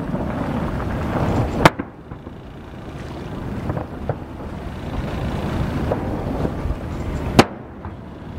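Two sharp, loud aerial firework shell bursts about six seconds apart, over a steady rumble of wind on the microphone and the boat.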